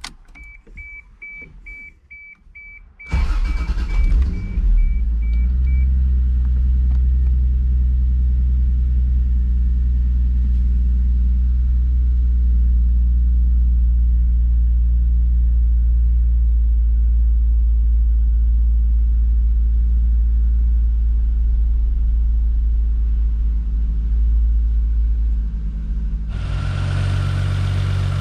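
Toyota Supra Mk3's 7M-GE inline-six is cold-started about three seconds in, after a run of short electronic beeps, and settles straight into a steady idle. The idle is smooth and really quiet with no ticking, a sign that the new cylinder head and head gasket are sealing well. About 26 seconds in, the sound gets brighter and fuller as it is heard from the open engine bay.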